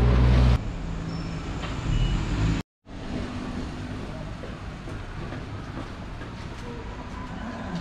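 Background music cuts off about half a second in, giving way to a work vehicle's engine running steadily, with a brief gap of silence about three seconds in.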